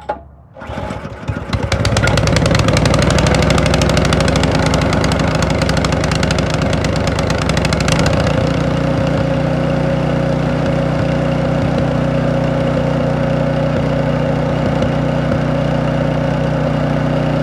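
Powersmart DB7651-24 snowblower's small four-stroke engine starting on the first pull and running steadily. It runs smoothly after a carburetor cleaning that cured its no-start, evening out about eight seconds in.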